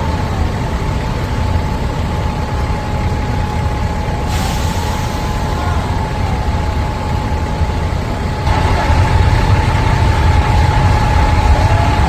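Heavy engines running steadily, a deep rumble with a constant high whine on top; it gets louder about eight and a half seconds in.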